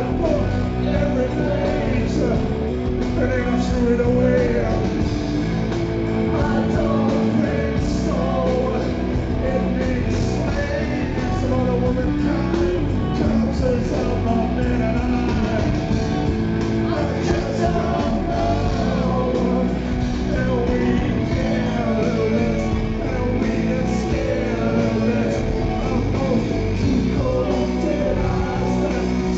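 A rock band playing live at full volume, with a man singing the lead vocal through a microphone over the dense band sound. Recorded from within the crowd, so the mix is loud and roomy.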